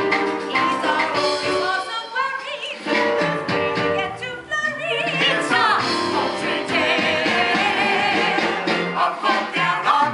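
Stage musical cast singing a show tune over instrumental accompaniment, several voices with vibrato on the held notes.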